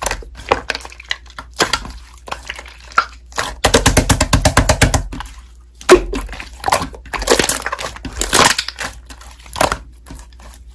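Slime being squeezed and pressed by hand, giving crackling pops and clicks, with a quick dense run of clicks about four seconds in.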